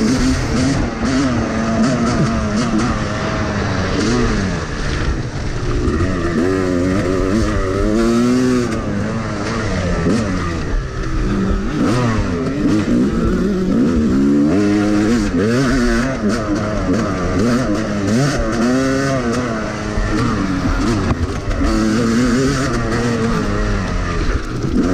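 Yamaha YZ250 two-stroke dirt bike engine under hard riding on a rough track, its pitch rising and falling again and again as the throttle is worked and gears are changed.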